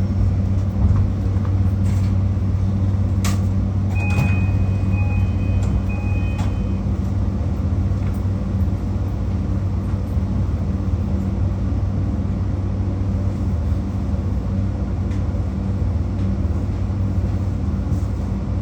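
Steady, even hum of a JR Kyushu 821 series electric train's onboard equipment with no rise or fall in pitch, typical of the train standing at a station with its doors open. There is a single click about three seconds in and a few short high beeps between about four and seven seconds in.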